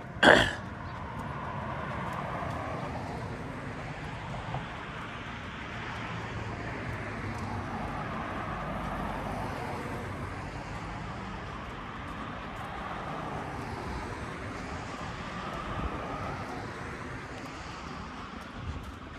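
Road traffic on the street alongside, cars passing one after another so the noise swells and fades. A brief sharp noise just at the start is the loudest moment.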